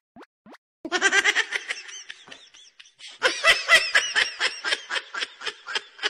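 A few quick rising plop sound effects, then laughter in short rapid pulses: a first burst about a second in and a longer, louder one from about three seconds in.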